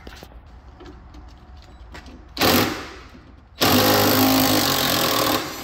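Cordless impact driver hammering in a short burst, then again for about two seconds, backing rusty screws out of a truck's inner fender liner.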